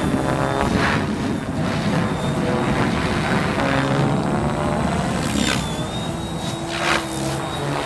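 Mikado Logo 600 electric RC helicopter flying aerobatics on a 12S battery: the whine of the motor and rotor head slides up and down in pitch with the load, broken by several whooshing rotor-blade swishes, the loudest near the end.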